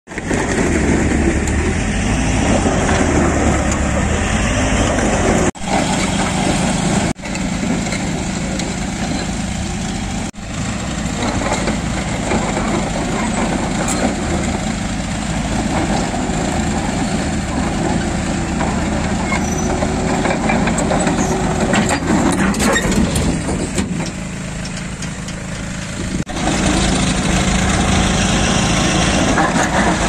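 New Holland crawler dozer's diesel engine running with a steady drone, broken by a few abrupt cuts.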